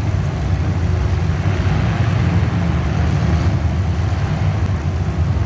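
Steady, loud, low motor-vehicle engine rumble with a noisy hiss above it.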